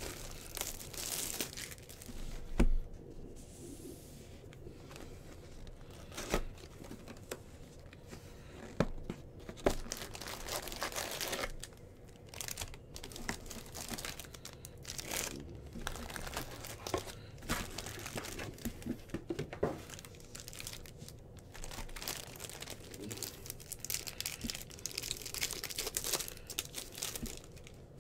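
Wrappers of 2022 Bowman Baseball jumbo packs being torn open and crinkled, in irregular rustles broken by scattered sharp clicks.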